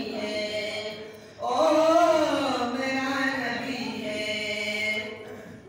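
A man singing a Bengali gazal unaccompanied, holding long wavering notes. A short pause for breath comes about a second and a half in, and then a loud phrase that rises and falls.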